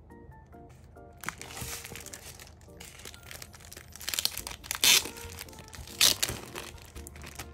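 Clear plastic wrapping crinkling and crackling as it is pulled off a clear iPad case, with two loud sharp crackles about five and six seconds in. Soft background music plays underneath.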